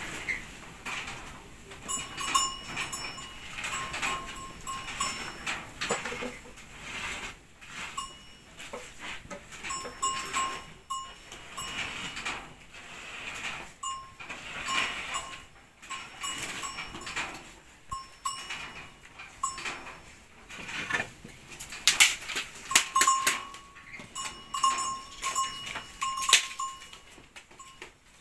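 Firewood knocking and clattering as sticks are shifted and laid on a hearth fire, loudest about two-thirds of the way through. An animal calls in short bursts now and then in the background.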